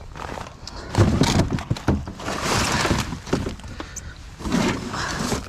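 Collapsed pop-up hub ice shelter being handled, its fabric rustling and shell thumping. There is a sharp thump about a second in, then a longer stretch of rustling.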